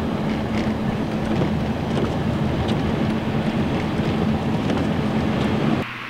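Steady road and engine noise inside a moving car on a snowy, slushy street, a continuous rumble with a constant low hum. It cuts off abruptly near the end.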